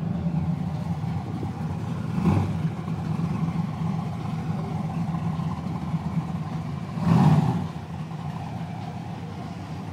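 Car engine idling steadily, with two brief louder swells about two seconds and seven seconds in.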